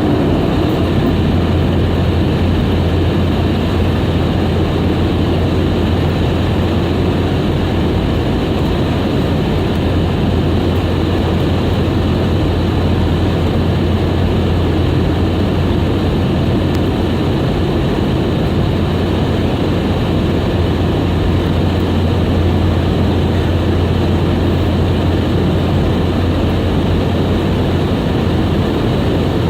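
Steady cabin drone of a Boeing 717: the rear-mounted Rolls-Royce BR715 turbofans and rushing air heard from a passenger seat, with a deep hum beneath an even roar that does not change.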